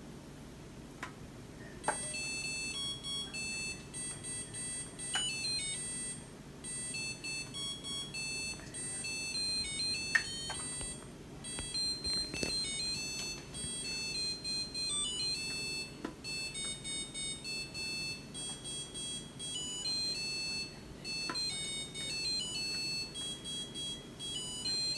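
Samsung DW80R5060US dishwasher's beeper playing its end-of-cycle melody, a long tune of high electronic beeps starting about two seconds in, signalling that the diagnostic test cycle has completed.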